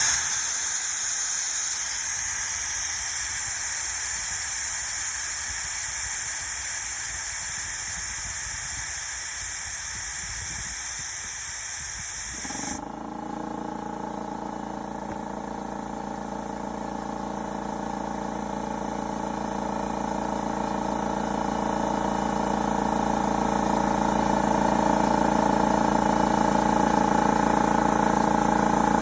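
Compressed air hissing out of a Husky air compressor's tank for about thirteen seconds, draining pressure below the pressure switch's set point. The hiss then stops suddenly and the compressor motor and pump start running, a steady drone that slowly grows louder as the tank pressure builds back up.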